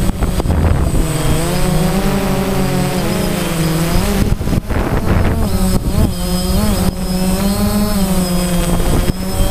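DJI Phantom quadcopter's four electric motors and propellers in flight, a steady buzzing whine whose pitch wavers up and down as the throttle changes.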